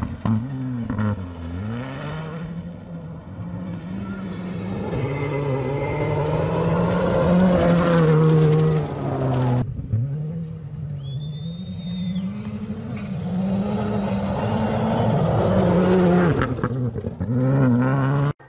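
Rally cars at full attack on a gravel stage, engines revving hard, the pitch dropping and climbing again and again with lifts and gear changes through the corner, over the hiss of gravel and tyres. The sound breaks off abruptly about halfway and starts again on another car's pass, which builds louder toward the end.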